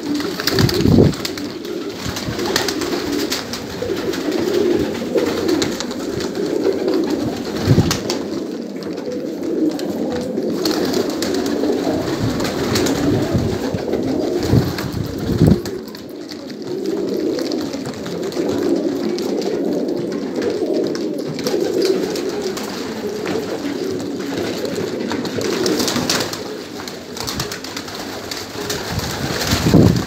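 Manbij domestic pigeons cooing steadily, many voices overlapping without a break. A few sharp knocks stand out above it, about a second in, near eight seconds and about fifteen seconds in.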